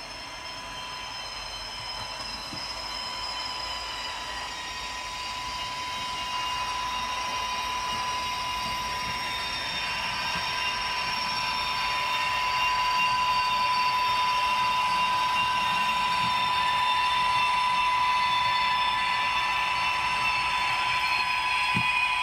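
H0-scale model train running, with a steady high whine that grows gradually louder as the train comes closer.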